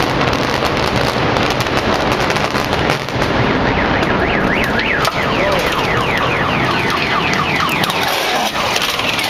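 Rumble and crackle of a high-rise building coming down in an explosive demolition, with a car alarm wailing in fast up-and-down sweeps from about three and a half seconds in.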